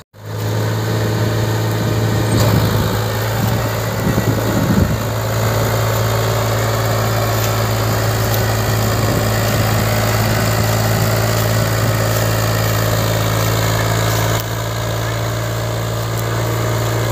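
HMT 3522 tractor's diesel engine running steadily under heavy load, hauling a fully loaded sugarcane trailer: a constant low engine drone, with a brief wavering in pitch about four seconds in.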